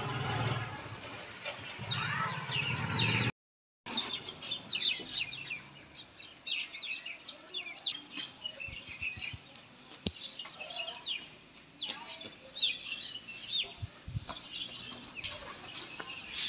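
Birds chirping and calling: a dense run of short, high, falling chirps throughout, over a low rumble in the first three seconds. The sound drops out completely for about half a second around three seconds in.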